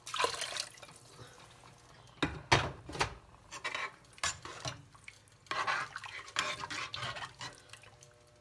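Water poured from a glass bowl splashes into a steel pot of dal. A metal ladle then stirs it, knocking sharply against the pot several times, loudest about two and a half seconds in. Near the end comes a rougher stretch of sloshing and scraping.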